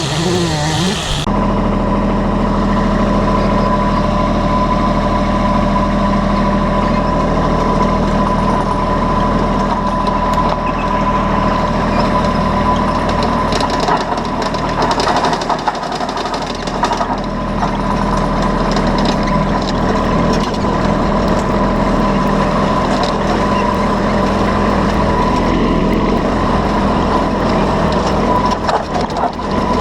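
A large engine running steadily at constant speed, with a steady high whine over it. Just over a second in, a wavering higher sound stops.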